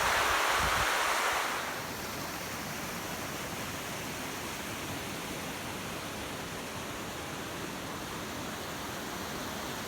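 Steady rushing of running water, louder for the first second and a half, then dropping to a lower, even level.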